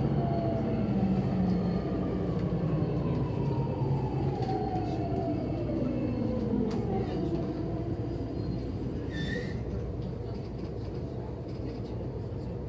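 JR East E231-series EMU motor car decelerating into a station, its traction motor and gear unit singing in a tone that falls steadily in pitch as it slows. The braking noise is abnormal, a growl that the recordist finds plainly wrong and suspects comes from the gearing; there is a brief high squeak about nine seconds in.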